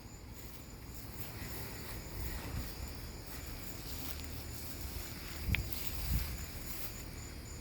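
Outdoor ambience: insects trilling steadily at a high pitch. About five and a half and six seconds in there are two soft low thumps, with a brief high chirp at the first.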